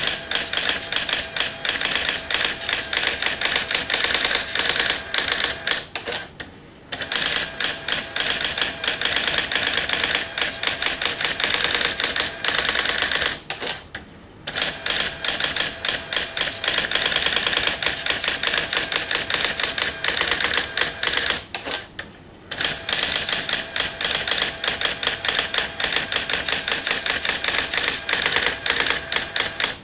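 Brother AX-20 electronic daisy-wheel typewriter printing: a rapid, continuous stream of character strikes, broken by a short pause about every seven to eight seconds.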